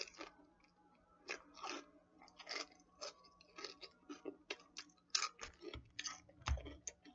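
A person chewing a crunchy mouthful of kidney beans, spinach, cheese, avocado and potato chips, with irregular crisp crunches about three times a second.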